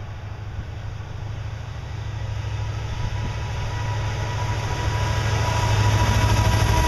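Diesel locomotives at the head of a CN intermodal freight train approaching and passing close by: a steady low engine rumble growing steadily louder, with a faint high whine coming in about halfway through.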